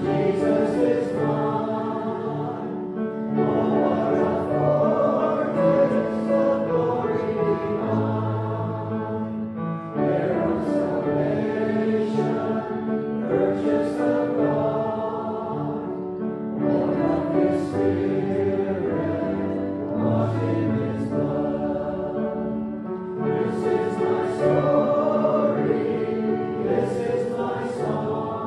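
A church congregation singing a hymn together, line by line, with short breaks between phrases.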